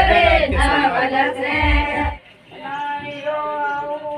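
Loud group singing with low thumps under it breaks off suddenly about two seconds in. Then women sing a wedding song in slow, long-held notes.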